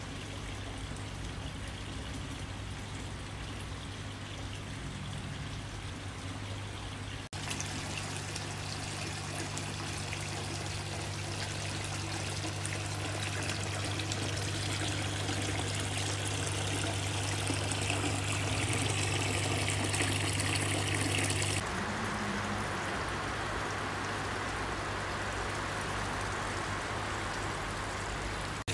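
Water pouring and trickling from bowl to bowl in a three-tier cascade fountain, over a steady low hum. The sound changes abruptly twice, about a quarter and about three-quarters of the way in.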